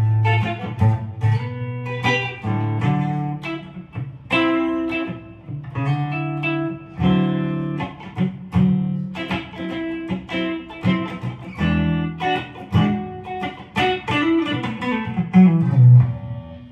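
Mattrixx Telecaster-style electric guitar with dual humbucker pickups played on a clean tone, picking a steady run of chords and single notes that each ring briefly.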